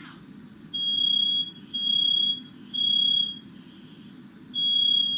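Smoke alarm sounding its high-pitched beep in the three-beep evacuation pattern: three long beeps, a pause, then the next cycle starting. It has been set off by thick smoke from a firework that went off indoors.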